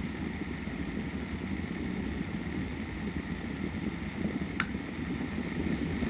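Mainstays 9-inch box fan running with a steady hum and a slight buzz, which the owner puts down to the motor needing more oil. A single short tick sounds once, about four and a half seconds in.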